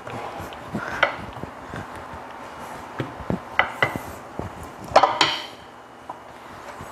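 White rolling pin rolling out dough on a hard countertop, giving irregular clicks and knocks as it rolls and bumps the surface, the loudest about five seconds in.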